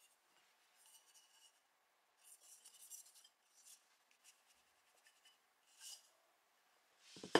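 Hands handling and rubbing two stainless-steel YETI Rambler 12 oz bottles, giving faint, short scratchy rubbing sounds every second or so. A much louder, lower sound starts right at the end.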